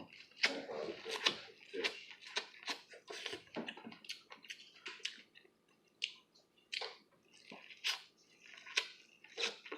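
Close-miked biting and chewing of buttered grilled sweet corn on the cob: wet, crisp crunches and clicks as kernels are bitten off, irregular, a few a second.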